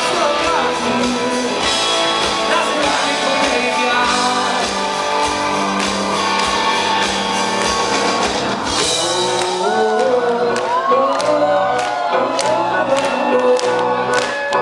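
Live rock band playing, with a male lead singer over guitars, keyboards and drums in a large concert hall. From about nine seconds in, long sung notes ride over a steady beat of sharp hits.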